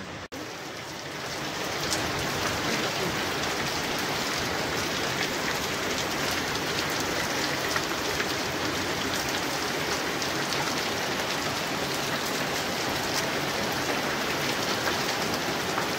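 Steady rain falling and pattering with a fine crackle, louder after the first two seconds.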